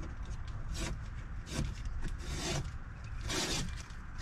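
Blue painter's tape being peeled off a car's window glass in about four short ripping pulls.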